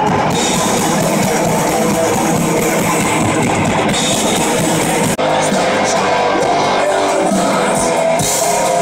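Live thrash metal band playing at full volume through a festival PA, heard from the crowd: distorted electric guitars and pounding drums. About five seconds in the sound drops out for an instant and jumps to a different passage of music.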